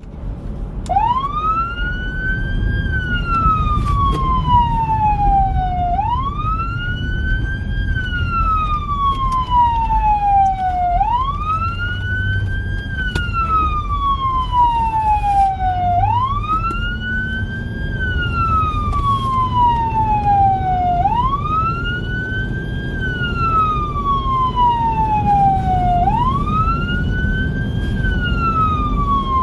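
Whelen 295SL100 electronic siren sounding a wail: each cycle rises for about two seconds and falls for about three, repeating about every five seconds. A steady low rumble of the moving vehicle runs underneath.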